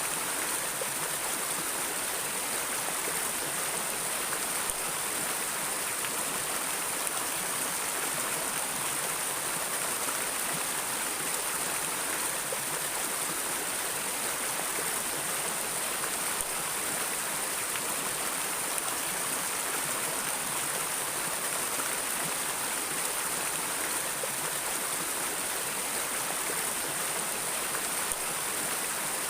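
Water flowing steadily in a stream, an even rushing with no separate splashes.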